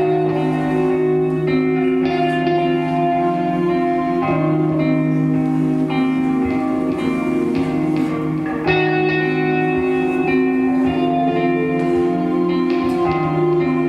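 Guitar music, held notes ringing over steady low tones, with a new phrase starting about two-thirds of the way through.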